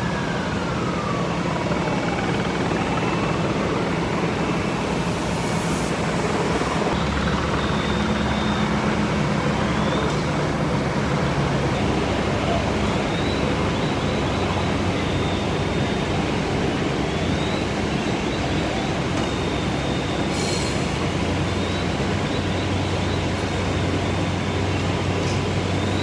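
Emergency-vehicle sirens wailing, rising and falling again and again, over a loud, steady rumble of idling fire-truck engines and street noise.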